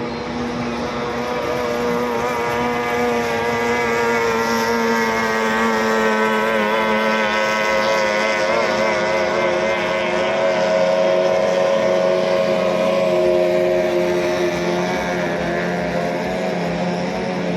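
Small 18 hp outboard motors on racing boats running hard. The engine note is steady, drifts slightly in pitch and swells loudest about two-thirds of the way through before easing off.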